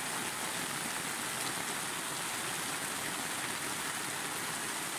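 Heavy thunderstorm downpour: a steady hiss of rain on the ground and on an awning, with runoff streaming off the awning's corner.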